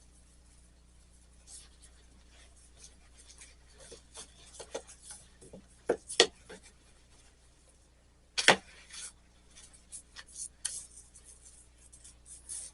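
Steel wool rubbing over a soldered stained-glass piece in short, irregular scratchy strokes, scrubbing the solder clean before patina goes on. A couple of sharp knocks stand out, about six and eight and a half seconds in.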